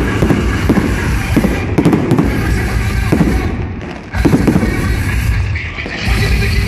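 Fireworks going off: dense crackling and popping with repeated bangs. A brief lull is cut off by a sudden loud burst about four seconds in.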